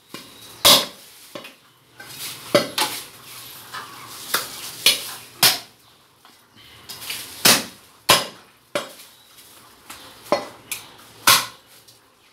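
A butcher's cleaver chopping through goat meat and bone on a round wooden chopping block: about ten sharp chops at irregular intervals, some in quick pairs.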